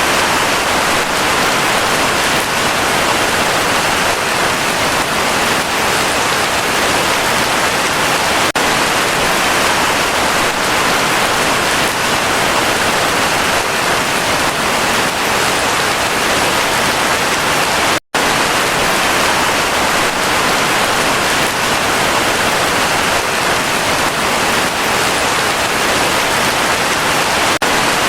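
Heavy rain falling steadily as a dense, even hiss. The sound drops out for an instant about two-thirds of the way through.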